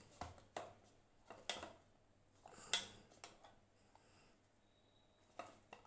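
Hands kneading wheat-flour chapati dough in a bowl: a few faint, irregular knocks and slaps as the dough is pressed and turned against the bowl, the loudest about three seconds in, with a quieter stretch after it.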